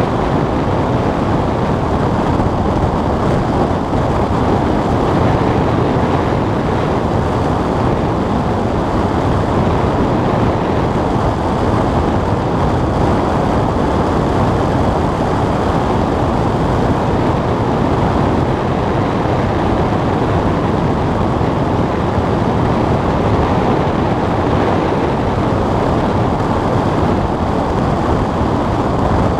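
Steady, even rush of airflow noise over a glider's canopy and the camera in flight, with no engine tone.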